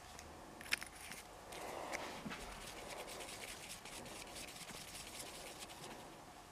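Faint handling sounds: a sharp click about a second in, then a long run of quick scratching and rubbing as putty is kneaded with fingers and worked with a wooden craft stick on a paper card.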